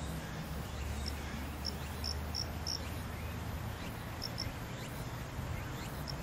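Outdoor ambience with insects chirping: scattered short, high chirps over a steady low rumble.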